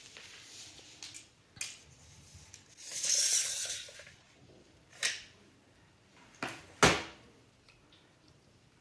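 Aluminium telescopic table leg being handled: a few sharp clicks and knocks, the loudest near seven seconds in, and a brief rush of scraping noise about three seconds in.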